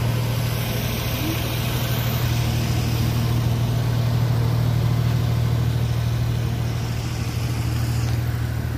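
Steady noise of road traffic on a nearby highway, with a constant low hum under it.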